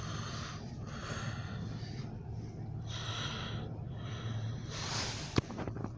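Breathing close to the microphone, four breaths about a second long, over a steady low hum, with a sharp click about five seconds in.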